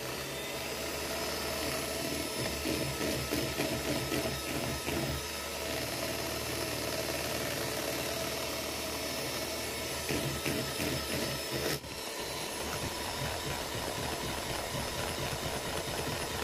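Scarlett electric hand mixer running steadily, its beaters whisking thick mayonnaise in a bowl: a motor hum with a light rattle. The sound briefly dips about twelve seconds in, then carries on. It is a low-powered mixer that the owner says gets very hot under this load.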